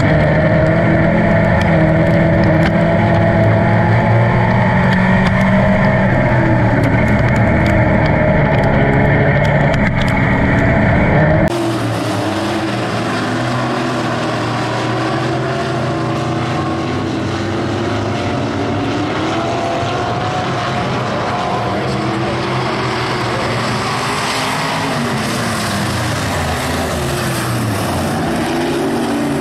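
Dirt-track super truck's race engine heard from inside the cab, running under load with its pitch rising and falling as the driver works the throttle. About eleven seconds in it cuts to race cars heard from the stands: engines rising and falling in pitch as they circle the dirt oval, with a steady hiss behind them.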